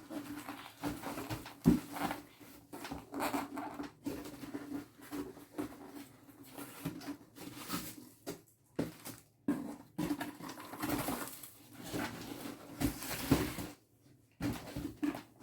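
Ceiling fan blades being unpacked from their box: irregular rustling, clicks and knocks of cardboard and packing being handled, over a steady low hum.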